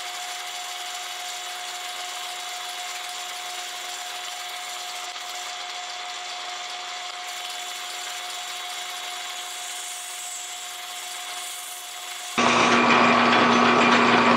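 Metal lathe running a power-fed facing cut across a naval brass gear blank: a steady motor hum with a faint cutting hiss. About 12 seconds in, the sound jumps abruptly to a louder, steady lathe motor hum with a lower whine.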